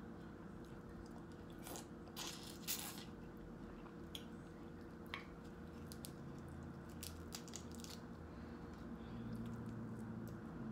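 Close-up eating sounds of a seafood boil: chewing and biting into shrimp, with short wet clicks and crunches scattered through, the loudest cluster a little past two seconds in, and shrimp shell being pulled apart by hand in the second half. A steady low hum lies underneath.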